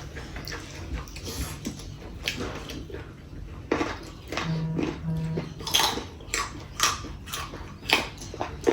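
Eating at a meal: scattered clicks and taps of a plate and food being handled and chewed, with two short low hums about halfway through.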